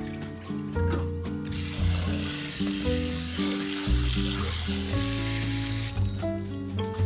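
Rice-rinsing water pouring and splashing into a stainless-steel sink as washed rice is tipped from a bowl into a mesh strainer. It starts about a second and a half in and stops about six seconds in. Background music plays throughout.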